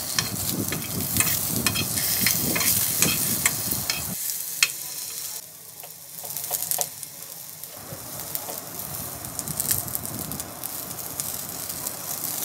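Potato wedges sizzling in hot oil in a frying pan, with a spatula clicking and scraping against the pan as they are stirred during the first four seconds. The sound drops off for a few seconds in the middle, then the sizzle resumes steadily.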